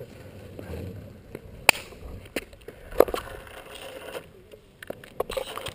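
Longboard rolling fast down a paved path: steady wheel and road noise broken by several sharp knocks, the loudest about one and a half and three seconds in.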